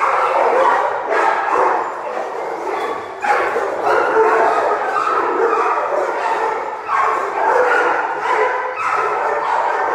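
Many kennelled shelter dogs barking and yipping at once, a continuous din of overlapping barks with no break.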